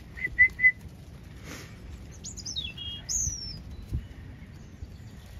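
Small bird calling: three quick chirps at the start, then a few higher falling notes about two to three seconds in, over a low wind rumble.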